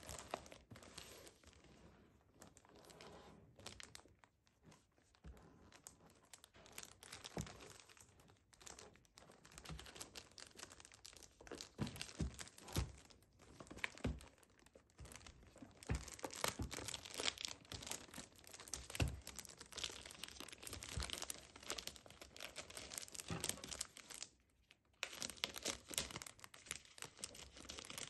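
Plastic shrink-wrap on a cardboard box crinkling and tearing under the fingers as it is handled and picked open. It comes as irregular crackles, busier and louder in the second half.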